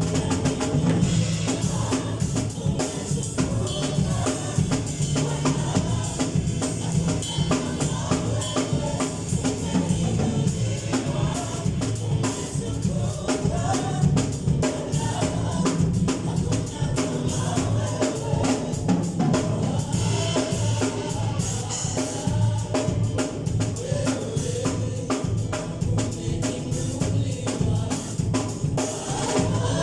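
Gospel worship band playing a steady groove led by a drum kit, with bass drum, snare and rimshot hits over a bass line, and voices singing along.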